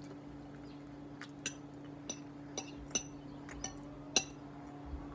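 Metal fork clinking against a glass baking dish as food is cut and scooped: about six light, ringing clinks, the loudest near the end, over a steady low hum.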